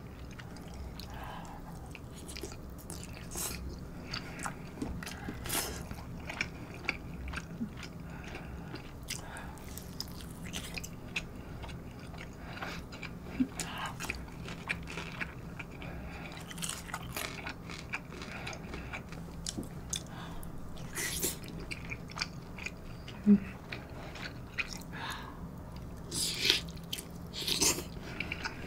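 A person chewing mouthfuls of kimchi-stewed pork cutlet and rice, with wet mouth sounds and many short clicks, and a brief low hum about two-thirds of the way through.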